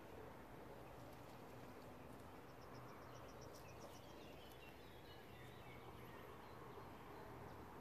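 Near-silent outdoor ambience. A faint high trill of quick, evenly spaced notes starts about two and a half seconds in and lasts about a second and a half, followed by a few faint chirps.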